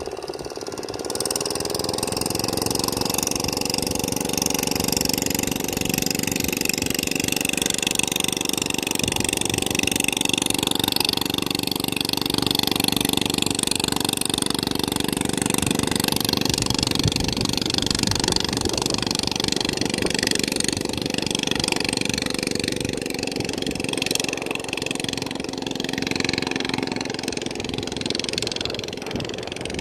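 An engine running steadily, its pitch rising briefly at the start and then holding level, with a steady hiss over it.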